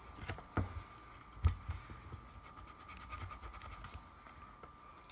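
Coloured pencils scratching on paper as two people draw, with a few sharp taps, the loudest about one and a half seconds in.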